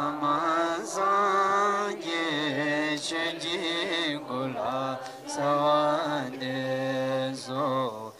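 Buddhist mantra chanting: voices singing a mantra in short sustained phrases over a steady low drone, with brief breaks between phrases.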